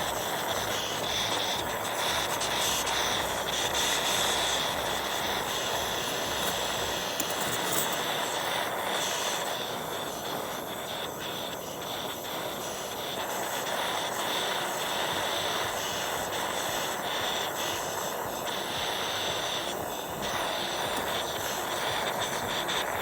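Jeweller's soldering torch burning steadily, its flame held on silver to melt beads of solder and run them along a seam.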